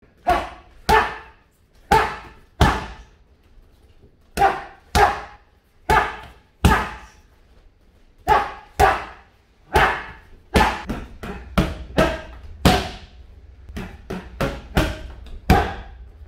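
Boxing-glove strikes landing on focus mitts: sharp slaps in one-two pairs about every second and a half, then quicker combinations of three to five strikes in the second half, each ringing briefly in the room.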